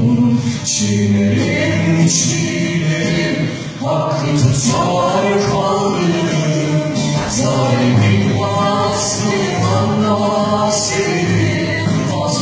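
A choir singing: many voices together in a continuous sung passage.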